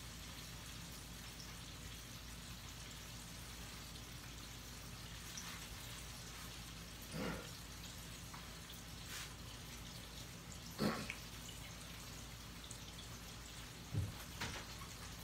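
Hot oil sizzling steadily as catfish and hush puppies deep-fry, with four short, sharper knocks spread through the second half.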